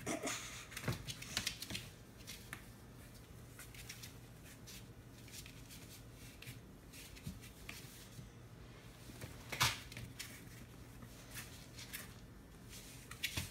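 A small dog scuffling on a cardboard floor as it grabs and tugs at a plush toy: scattered scratches and taps of claws on cardboard, busiest at the start, with a louder scrape near the middle and a few more near the end.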